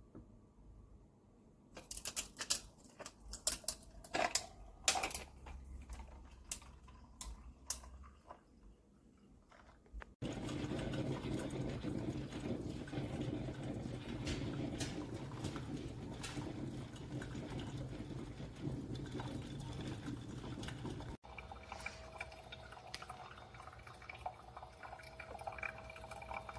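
Scattered clicks and knocks of plastic and metal being handled, then a sudden cut to a loud steady run of liquid with a low hum for about eleven seconds, then a quieter stretch after another cut.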